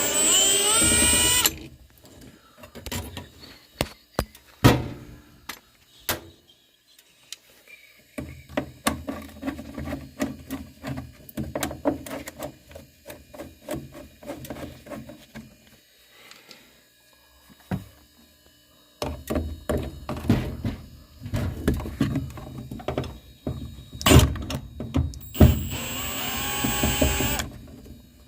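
Cordless drill-driver spinning up with a rising whine at the start and again near the end. In between come irregular knocks, clicks and clatter of tools and parts being handled during work on a gas furnace.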